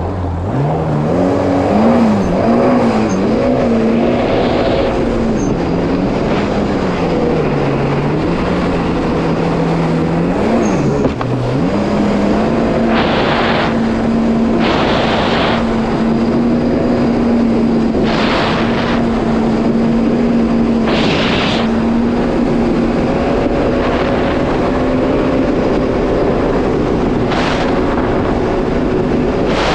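Yamaha GP1800R SVHO WaveRunner's supercharged four-stroke engine revs up as the jet ski accelerates away. Its pitch wavers and dips twice in the first ten seconds or so, then holds steady at cruising speed. From about a dozen seconds in there are several short bursts of rushing noise.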